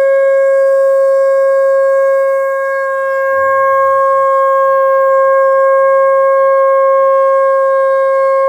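Conch shell (shankh) blown by a priest in worship: one long, steady, loud note that dips slightly in loudness about three seconds in.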